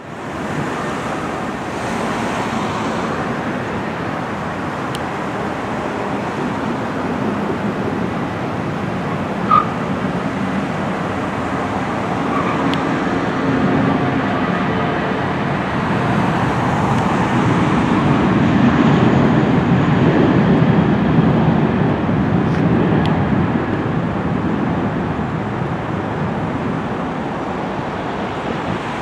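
Airbus A320-200's twin turbofan engines at takeoff power during the takeoff roll: a steady roar that grows to its loudest a little past the middle and eases slightly as the jet lifts off, mixed with road traffic. A short sharp chirp sounds near ten seconds in.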